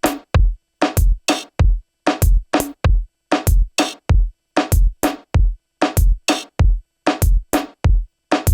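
Reggaeton drum loop playing back from an Akai MPC One: a deep kick and sharp snare or clap hits repeat in an even, syncopated pattern with gaps of silence between them and no melody.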